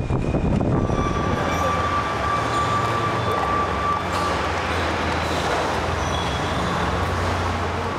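Steady mechanical rumble and hiss of warehouse machinery, with a low hum and a thin steady whine from about a second in until about halfway through.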